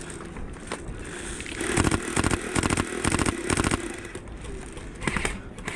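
Airsoft electric rifle firing several quick full-auto bursts, a rapid rattle of shots over the whine of its motor, about a second and a half in, with scattered clicks before and after.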